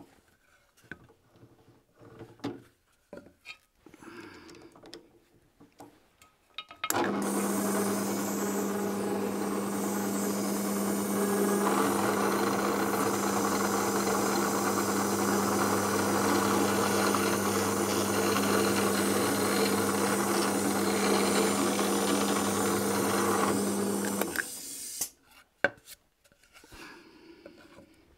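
Electric drill starting up about seven seconds in with a steady motor hum, then the bit biting into wood, adding a rougher cutting noise for some twelve seconds before the drill stops. Light handling knocks come before it.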